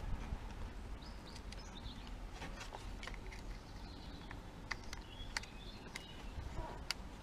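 Faint, scattered small clicks and taps of a plastic wiring-loom connector and a circuit tester's probe tip being handled, over a low background rumble. A few faint, short high chirps, typical of small birds, sound now and then.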